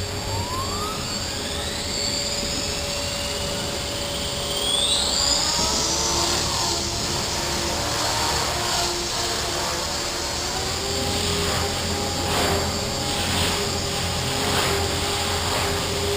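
Align T-REX 500 electric RC helicopter spooling up, its motor and gear whine rising steeply in pitch over the first six seconds, then holding a steady whine with the rotor running at flight speed.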